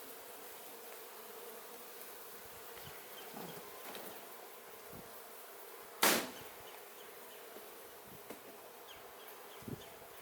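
Honeybees buzzing in a steady hum around an open hive, with one sharp knock about six seconds in and a smaller knock near the end.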